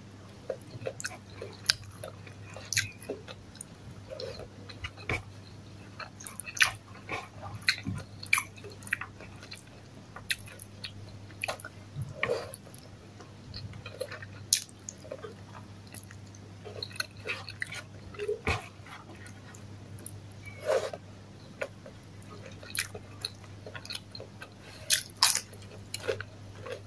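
Close-up chewing and biting mouth sounds of a person eating by hand, with irregular wet clicks and smacks every second or so. A faint steady low hum runs underneath.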